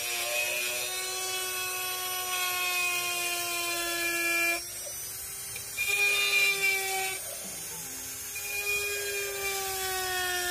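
Small handheld rotary tool with a fine bit cutting into a dry coconut shell: a steady high whine that shifts a little in pitch and loudness several times as the bit presses in and eases off.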